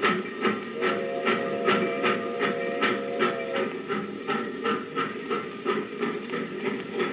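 Recorded sound effect of a steam locomotive under way, its exhaust chuffing steadily about two to three times a second, with its steam whistle blowing one long note for about three seconds near the start, under the hiss of a 78 rpm shellac record.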